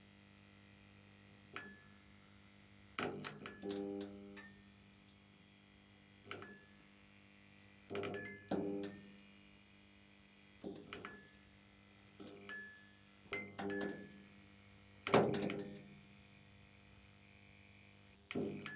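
Neon light flickering: irregular sharp clicks and ringing tinks, some in quick pairs or clusters, over a steady low electrical hum.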